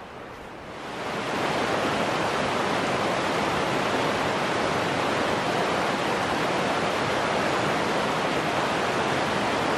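Fast-flowing creek rushing over rocks, a steady loud rush of water that comes in about a second in.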